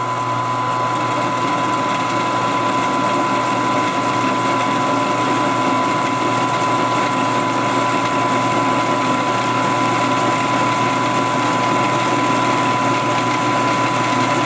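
Milling machine running steadily while a face mill cuts across the tops of aluminum mold blocks clamped in the vise, facing them flat: an even machine hum with a steady high whine.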